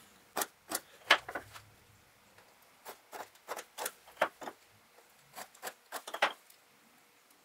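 Irregular light clicks and taps of a small wooden block and a square being set down, turned and repositioned on a metal table saw top while a line is scribed around the block.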